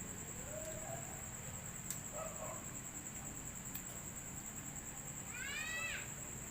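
A cat meows once near the end, a short high meow that rises and then falls in pitch, after fainter calls earlier. Crickets keep up a steady high chirring underneath.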